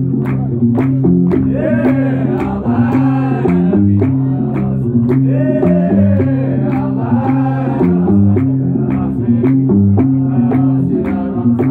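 Gnawa music: a guembri bass lute plucks a repeating low riff under steady, rhythmic handclaps, and a group of men sings in chorus in two stretches, about 2 seconds in and again around 5 to 8 seconds.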